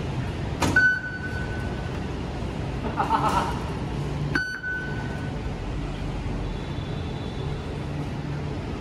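Metro ticket gates beeping twice, about three and a half seconds apart: each beep is a sharp click followed by a clear, steady tone of under a second as a ticket is read. A brief rustle comes between the two beeps, over a steady station hum.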